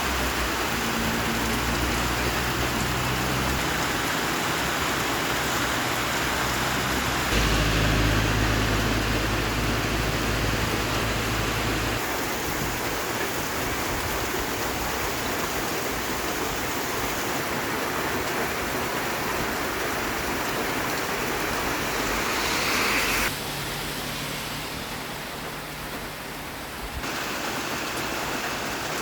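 Steady rain falling in an even hiss, its sound shifting abruptly in level and tone several times, with a low rumble underneath in the first part.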